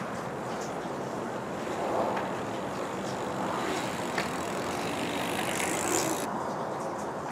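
Mountain bike rolling up the street and passing close by, its tyres hissing on the asphalt, over a steady street background. The hiss swells about five seconds in and cuts off sharply just after six.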